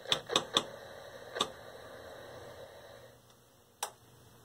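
A handful of sharp clicks, four in the first second and a half and one more near the end, over the faint steady hiss and hum of a running 1966 Admiral PK1369 vacuum-tube TV. The set's hiss and hum die away about three seconds in.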